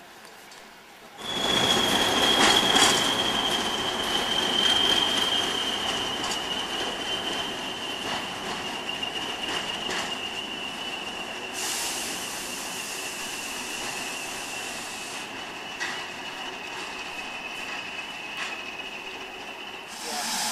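Wheels of passing railway passenger coaches squealing against the rails as the train rolls through, with a rumble of rolling stock and occasional clicks over rail joints. It starts suddenly about a second in, and the single high squeal holds steady while sinking slightly in pitch.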